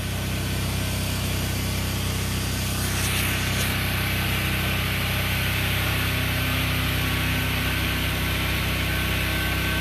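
A pressure washer's engine runs steadily, with the hiss of the high-pressure water spray growing stronger about three seconds in.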